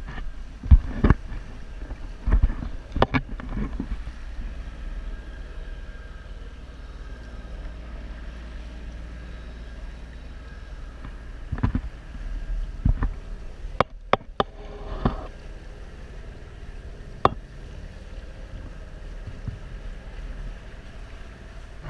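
Lake water rushing and sloshing along a moving sailboat's hull right at the microphone, with a steady low wind rumble and a scattering of sharp slaps, most in the first few seconds and again about halfway through.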